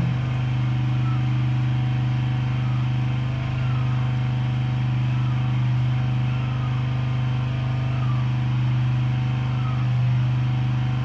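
Steady low mechanical hum of a running machine at an even level throughout, with faint short falling chirps about every second and a half.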